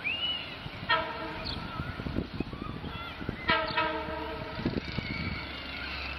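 Long Island Rail Road commuter train's air horn sounding two chord blasts as the train approaches a grade crossing: a short one about a second in, then a longer one about three and a half seconds in.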